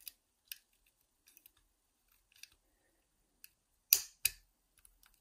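Metal lock-picking tools clicking inside a five-lever mortice lock as the levers are worked: scattered faint ticks, with two sharper clicks close together about four seconds in.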